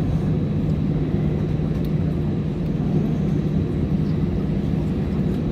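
Airbus A320's engines and airframe heard from inside the passenger cabin: a steady low drone with a constant hum, no change in pitch or level.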